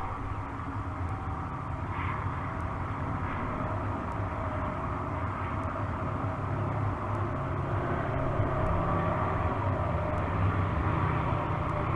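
Steady low drone of a distant engine, slowly growing louder toward the end.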